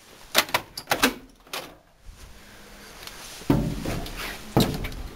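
The cab door of a 1966 Diamond T semi truck being opened: several sharp latch and handle clicks and knocks in the first two seconds. Then heavier thumps with a low rumble as someone climbs up into the cab.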